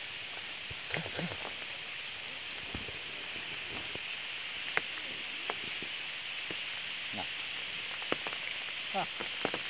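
Steady rain falling on wet ground and stone, with scattered nearby drops tapping sharply.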